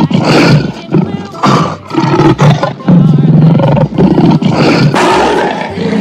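Lion roaring: a recorded series of rough roars one after another, played as the animal's sound.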